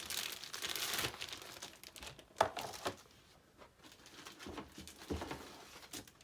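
Plastic packaging crinkling and rustling as it is handled, loudest in the first second, followed by a few sharp knocks, the loudest about two and a half seconds in.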